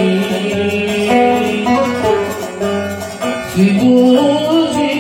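Oud playing a Yemeni Sanaani melody, a continuous run of plucked notes.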